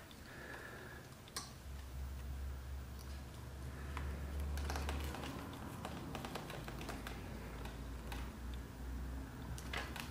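Leather being hand saddle-stitched: an irregular run of small clicks and short scratchy pulls as the needles pass through the punched holes and the thread is drawn tight, over a low handling rumble.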